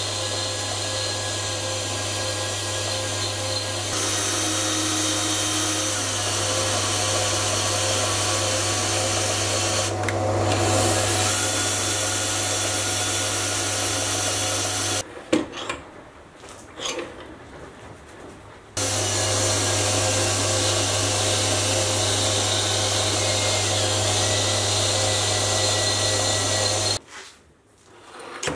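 Mini lathe running under power, its tool cutting a steel workpiece as it turns a Morse 2 taper. The motor's steady hum and whine stop for a few seconds midway, where only a few light clicks are heard, then resume and cut off near the end.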